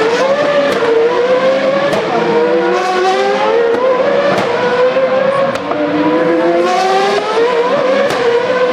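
Formula Renault 3.5 race cars' V8 engines, more than one at a time, climbing in pitch as they accelerate and dropping back at each upshift.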